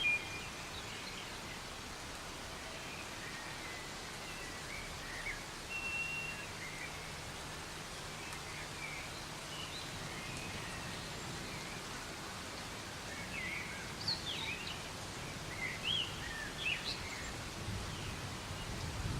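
Soft, steady rain hissing in a forest, with birds chirping over it in short, quick calls that come thickest about two-thirds of the way through.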